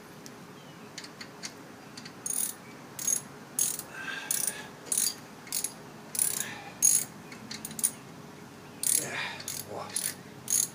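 Hand ratchet clicking through repeated strokes as it tightens a brake caliper bolt. It starts about two seconds in at about two strokes a second, pauses briefly, then gives a few more strokes near the end.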